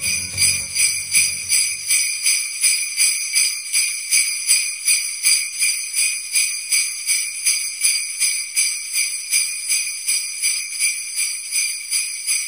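Jingle bells shaken in a steady rhythm, about two and a half shakes a second.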